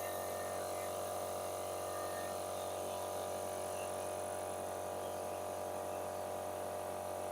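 Oil-lubricated air compressor running steadily as it pumps up its tank, a constant droning hum with no change in pitch; the run is meant to warm and thin the pump oil before an oil change.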